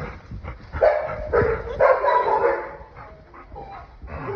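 Labrador retriever puppies barking and yipping, with a run of short yaps about a second in that fades out toward the end.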